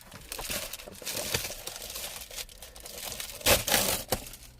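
Plastic packaging crinkling as it is handled and opened, with a louder burst of crackling about three and a half seconds in.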